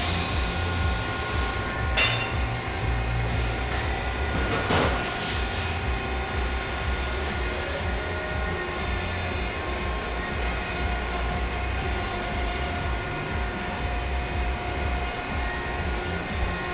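Manual Mazak lathe running, a steady low mechanical hum with a constant whine from its headstock gearing. There is a sharp click about two seconds in and a short scraping burst about five seconds in.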